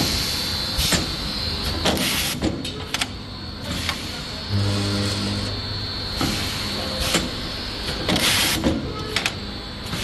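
Automatic resistance chain-welding machine cycling: a steady low electrical hum while current passes through a link and heats it red-hot, twice, about four and a half seconds apart. Between the welds come short air hisses and metallic knocks from the pneumatic feed and clamping gear as the chain moves on to the next link.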